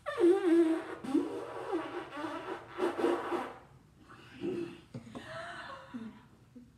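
Long spiralled horn shofar blown by mouth in a few short, wavering, sputtering buzzes that keep breaking off instead of sounding a clean blast. The first buzz, in the opening second, is the loudest. This is the sound of a player who cannot yet get the shofar to speak.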